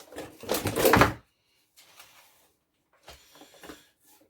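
Cardboard packaging being handled and pulled away: one loud scraping rustle lasting about a second near the start, then a few faint short rustles.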